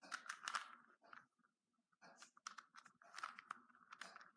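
Plastic Rubik's cube being twisted by hand: its front face is turned twice, and the layers click and scrape in several short bursts, faintly.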